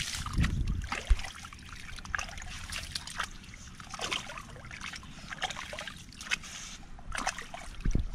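Shallow water splashing and trickling in short, irregular little bursts, with one sharp thump about a second in.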